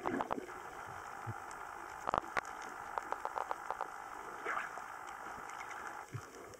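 Underwater recording noise: a steady hiss with many scattered sharp clicks and crackles, the loudest clicks about two seconds in.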